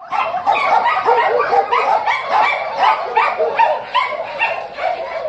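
Dogs barking rapidly and continuously, about three or four barks a second, overlapping at different pitches.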